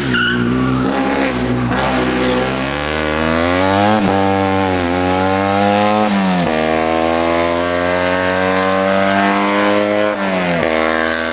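Small historic racing car of the up-to-850 cc class, a Fiat 500 type, accelerating hard uphill: engine revs climb, drop sharply at upshifts about four and six and a half seconds in, then pull up again in a long climb and fall away near the end.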